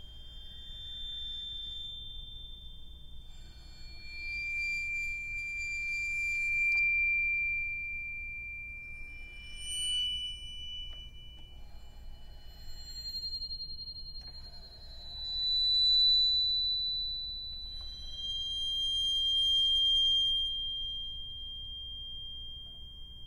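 Crotales bowed with a cello bow, playing a slow melody of long, very high, pure ringing tones. Each note swells as it is bowed and rings on into the next, with a faint hiss of the bow at the start of each.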